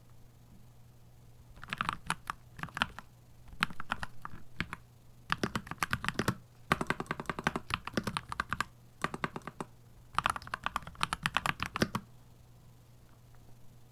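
Typing on a Keychron C2 Pro 8K mechanical keyboard: runs of rapid keystrokes broken by short pauses, stopping about two seconds before the end.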